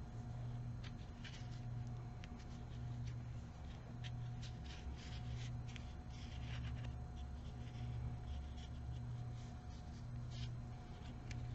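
Crochet hook working yarn through stitches: soft, irregular scratching and light ticks over a steady low hum.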